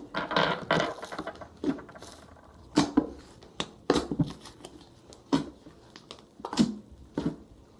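Homemade glue slime being squeezed and worked by hand, with irregular sharp pops and squelchy clicks as trapped air bubbles burst, roughly one every half second to a second.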